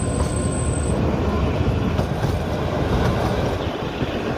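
Kalka–Shimla narrow-gauge toy train running along the track, a steady rumble of coach wheels on the rails, heard from the open door of a moving coach.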